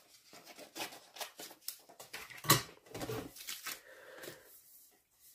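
Scissors snipping thin vellum paper in short irregular cuts, then a single sharp knock on the cutting mat about two and a half seconds in, followed by light rustling and tapping as paper pieces are moved.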